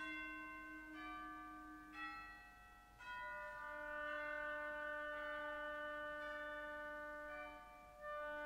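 Amateur concert band playing soft held chords, the chord changing about once a second at first, then one long sustained chord that fades, with a new chord entering near the end.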